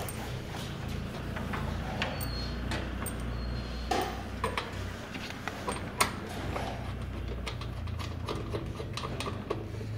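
Scattered light clicks and knocks from hands working at a sheet-metal machine cabinet, the sharpest about 4 and 6 seconds in, over a low steady rumble.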